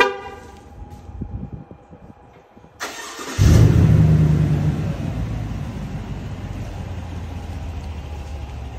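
GMC truck with a newly welded-on Magnaflow muffler and its silencer cut off, started by remote. The starter cranks briefly about three seconds in, then the engine catches with a loud flare and settles into a steady idle through the exhaust.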